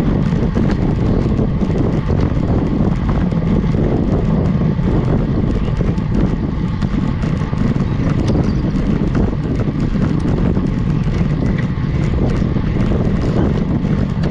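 Wind buffeting a GoPro HERO 8 action camera's microphone on a road bike climbing, a steady low rumble with no letup.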